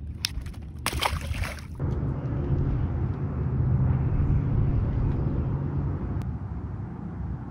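Rustling, knocking handling noise for a second or two, then a steady low engine drone with wind on the microphone, easing off a little near the end.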